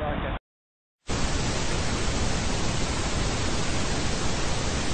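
Television static: a steady, even hiss of white noise that starts suddenly about a second in, after a brief cut to dead silence.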